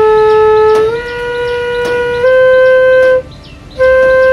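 Bamboo bansuri flute playing long, held notes that step up one by one in a slow rising scale, a learner's sargam practice. There is a short break about three seconds in, then the same note is taken up again.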